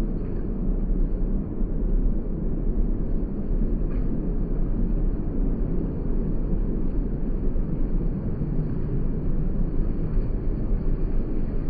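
Strong wind buffeting the microphone: a continuous low rumble that keeps gusting up and down in loudness.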